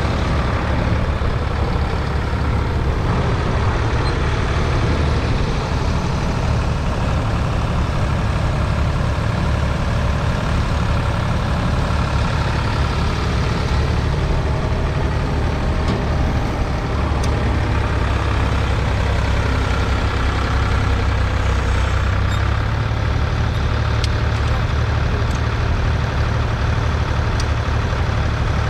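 1970 Ford 3000's 2.9-litre three-cylinder diesel engine running steadily, with a deep, even engine note throughout.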